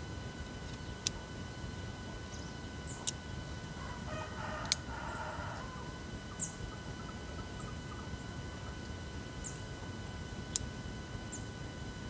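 Leatherman Wave Plus multitool clicking as it is handled and its tools folded: four sharp metal clicks spread out, the loudest a little under five seconds in.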